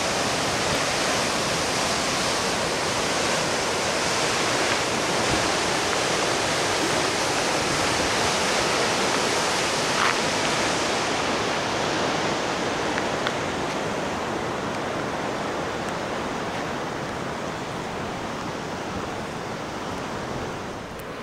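Pacific Ocean surf breaking and churning against rocks at the foot of a cliff: a steady rush of noise that grows quieter and duller in the second half.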